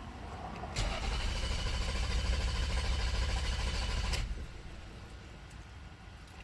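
The 2001 Toyota Sienna's engine being cranked over by its starter, starting suddenly about a second in and cutting off sharply after about three and a half seconds, during a test of a crank-no-start fault.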